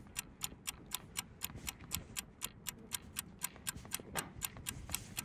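Clock ticking steadily, about four sharp ticks a second.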